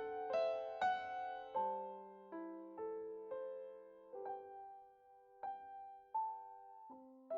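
Background solo piano music: single notes and chords struck and left to ring and fade, slowing to a few sparse notes around the middle before picking up again near the end.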